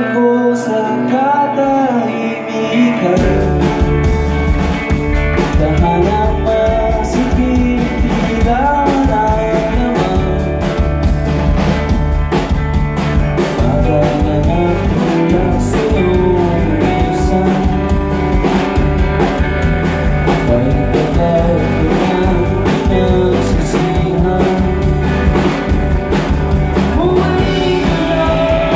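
Live rock band: a male lead vocal over electric guitars, with the bass guitar and drum kit coming in about three seconds in, after which the full band plays on.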